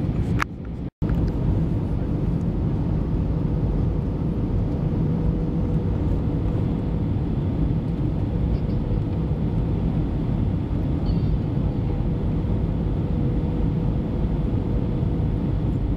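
Steady airliner cabin noise from a window seat on approach: engine and airflow noise with a faint steady hum. A click and a brief drop-out about a second in.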